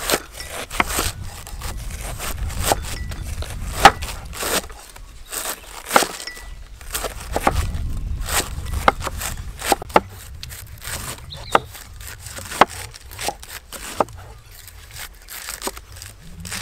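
Cleaver shredding a head of raw cabbage on a wooden chopping block: an irregular run of crisp chops, each cut crunching through the leaves and knocking into the wood.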